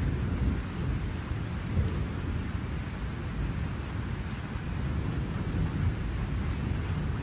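Thunderstorm: a continuous low rumble of rolling thunder under steady rain.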